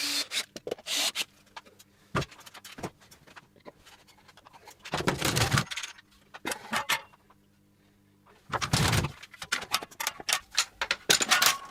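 Irregular metallic clanks and knocks from long steel sash clamps being handled and hung on a wall rack, with louder clattering spells about five and nine seconds in.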